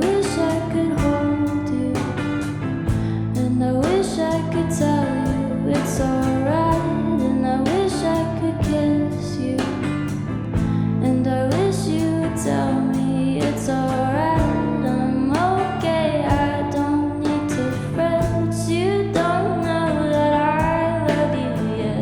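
Live band playing an instrumental passage: a gliding, bending melody line over steady bass, drums and keys, with guitar prominent.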